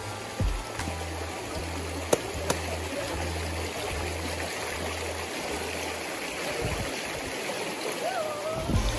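Shallow stream of hot-spring water running over a rock bed, a steady rush and trickle of water.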